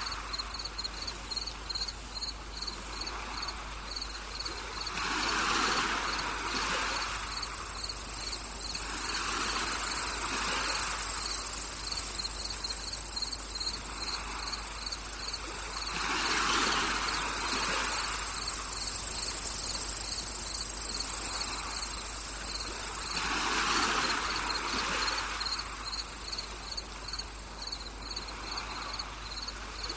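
Insects, crickets among them, chirping: a steady high trill with a regular chirp of about three a second over it. Beneath them, a soft whooshing swells and fades every several seconds.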